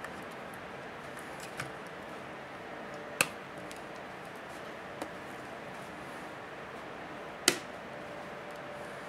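Sharp plastic clicks and snaps as a plastic pry tool works around the edge of a Samsung Galaxy Tab 3's case. Two loud snaps come about three seconds in and about seven seconds in, with fainter clicks between, over a steady background hiss.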